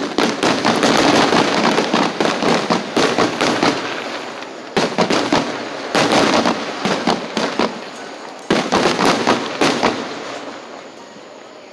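Fireworks going off in three volleys of rapid crackling pops: one at the very start, one about five seconds in, and one about eight and a half seconds in, each trailing off before the next.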